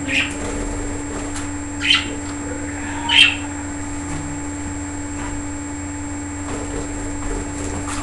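Pet budgerigars chirping: a few short, high chirps in the first few seconds, the loudest about three seconds in, then fainter ones, over a steady background hum.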